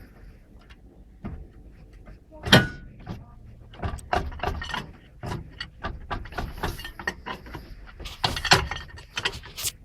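Irregular metal knocks and clanks as a car driveshaft is worked free of the hub, with one loud knock about two and a half seconds in.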